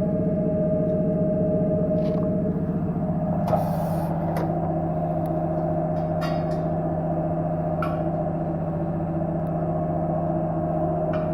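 A steady machine hum, with a few short clicks and scrapes over it, from tyre-repair equipment.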